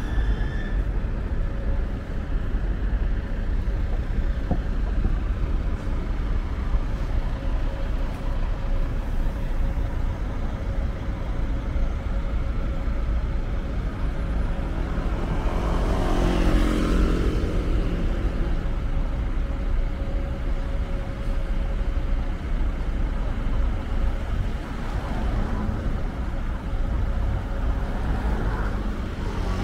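Steady city road traffic running past, with one vehicle passing close about halfway through, its sound rising and then falling away.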